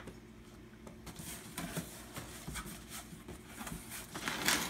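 Cardboard box flaps being handled and a styrofoam shipping box shifted inside the carton: scattered rustles, taps and scrapes, with one louder scrape near the end.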